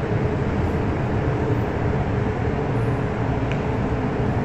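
MTR M-train (Metro-Cammell electric multiple unit) running alongside the platform behind platform screen doors: a steady rumble of wheels and traction equipment with a held hum over it.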